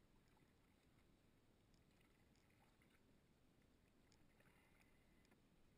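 Near silence: faint water sounds around a canoe on a river, with a few light ticks.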